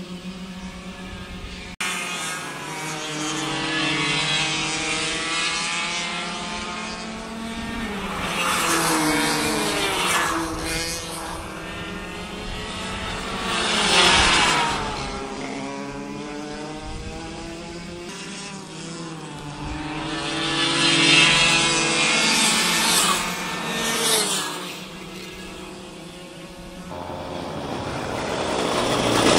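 Racing go-kart engines going past one after another, their pitch rising and falling with each pass, loudest about 14 s and 21 s in.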